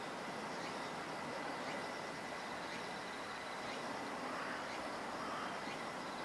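Steady outdoor background noise: an even hiss with a faint, steady high tone running through it and no distinct events.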